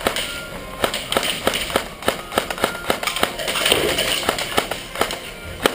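Airsoft guns firing single shots in quick irregular succession, a few cracks a second, with two louder shots close together near the end.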